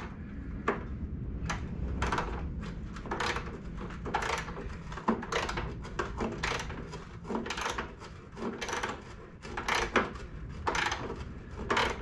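Socket ratchet clicking in short back-and-forth strokes, a little under two a second, as a tight, rusty engine-shroud bolt is worked loose a bit at a time with penetrating oil; the bolt keeps binding up.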